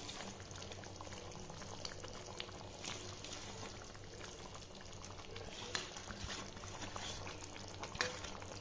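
Thick chicken curry gravy simmering uncovered in a pan, a steady bubbling crackle, with a few soft clicks.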